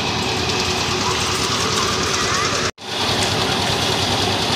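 Portable concrete mixer's engine running steadily with the drum turning. The sound drops out for an instant a little under three seconds in.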